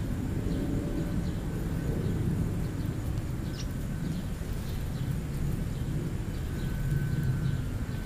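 Steady low rumble of outdoor background noise, with faint short bird chirps scattered through it, a clearer one about halfway through.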